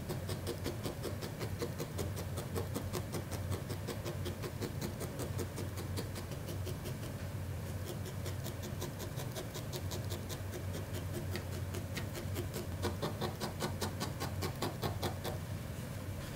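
Barbed felting needle stabbing repeatedly into wool fibre, a quick, even run of small crunchy pokes at about five a second, as the tail is felted onto the body to make a solid join.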